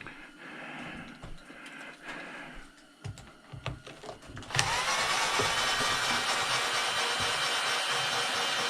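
A few tool clinks and handling knocks, then about four and a half seconds in a motor starts abruptly, spins up quickly and runs on steadily with a loud rushing hiss.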